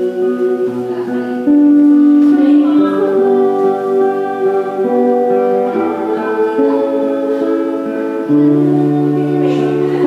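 A woman singing a slow song in long held notes, accompanied by an acoustic guitar.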